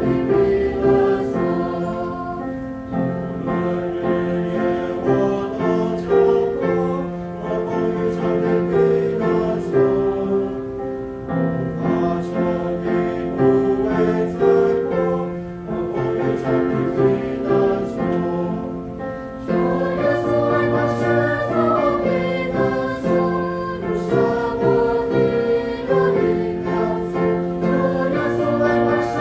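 A choir singing a hymn in several-part harmony, holding long chords that change every second or two.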